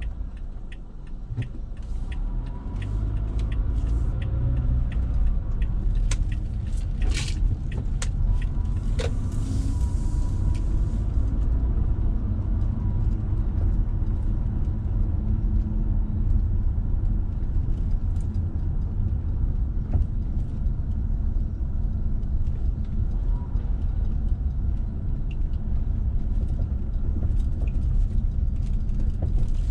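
Car cabin noise while driving: a steady low rumble of engine and tyres on the road that swells a few seconds in as the car pulls away, with scattered sharp clicks and rattles.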